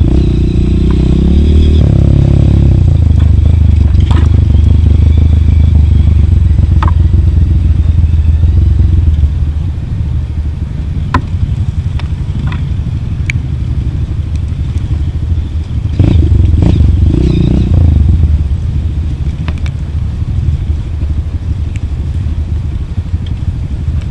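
Trail motorcycle engine running on a rough downhill dirt track, with stones and gravel clattering and knocking under the wheels. It runs louder for the first nine seconds and surges briefly again a few seconds later.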